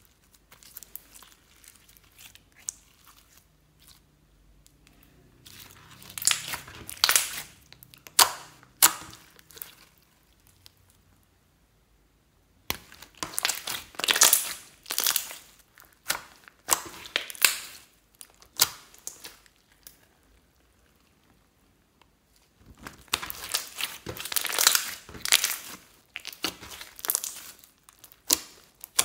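Clear slime worked by hand, giving off dense runs of quick sticky clicks and pops in three spells of several seconds each, with quiet pauses between.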